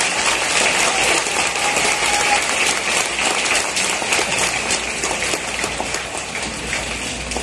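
Large stadium crowd applauding: a dense, steady wash of clapping, easing slightly toward the end.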